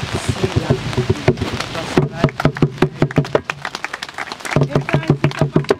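A group of people clapping their hands in a quick, even rhythm, with voices among it.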